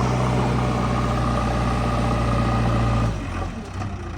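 Diesel engine of a JCB 3DX backhoe loader running steadily. About three seconds in the sound drops abruptly to a quieter, lower engine note.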